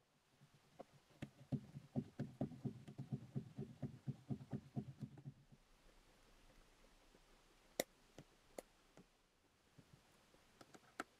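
Glass rod stirring salt solution in a plastic cup, knocking quickly and irregularly against the cup's sides for several seconds. A few single sharp clicks follow near the end.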